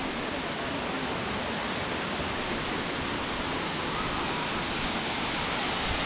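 Steady rush of water from a waterfall, an even hiss with no breaks that grows slightly louder about four seconds in.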